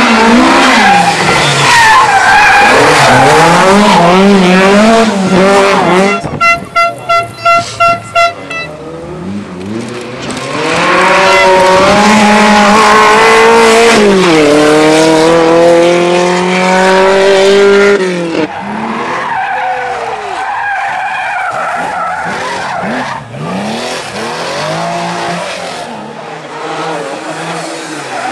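Rally car engines revving hard and changing gear as the cars pass. A fixed-pitch tone pulses about three times a second early on, then one car climbs loudly through its revs with gear changes before the sound drops to quieter passes.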